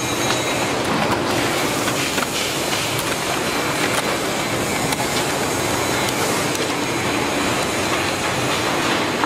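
Machinery of a PET bottle washing line running: a steady, even mechanical noise with scattered light clicks and rattles.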